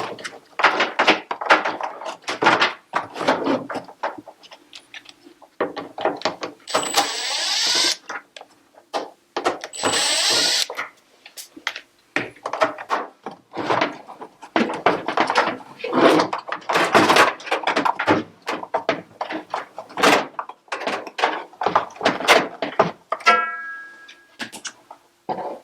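Parts of a washer-dryer being handled during disassembly, with irregular clattering and knocking. Two hissing bursts of about a second each come near the middle, and there is a short squeak near the end.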